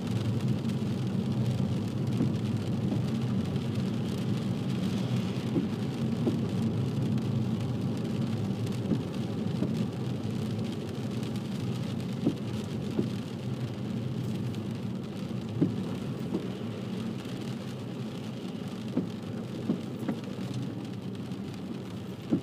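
Car driving on a wet road, heard from inside the cabin: a steady low engine and tyre rumble with a hiss of spray, and scattered light taps of rain on the car.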